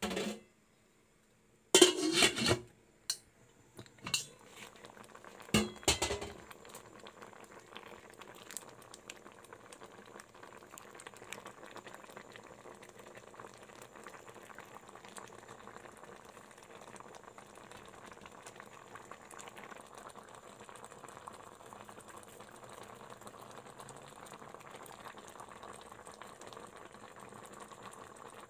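Shrimp in coconut milk coming to a boil in a pan, bubbling and foaming steadily. In the first six seconds there are a few loud clattering knocks of cookware, the loudest about two seconds in.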